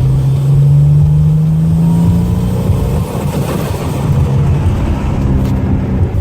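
Turbocharged 3.8 L V6 (L36) in a Pontiac Grand Prix revving up under load, its pitch climbing for about two seconds and then turning choppy and uneven: the misfire the car is suffering from.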